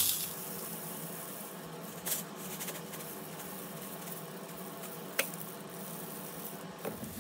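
Sodium hydroxide (lye) granules pouring from a plastic jar into a plastic cup on a scale: a steady trickling hiss, with a couple of light clicks.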